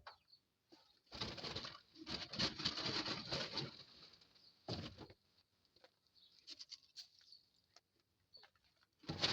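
Birds at a seed feeding spot: stretches of rustling and wing flutter, then scattered light taps about two thirds of the way through.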